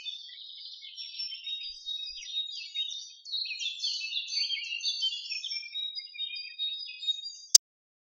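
A chorus of small songbirds singing, many quick chirps and trills overlapping. It cuts off abruptly with a click near the end.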